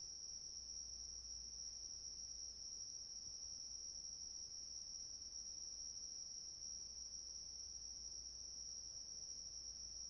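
Crickets chirping in a steady, unbroken high-pitched chorus.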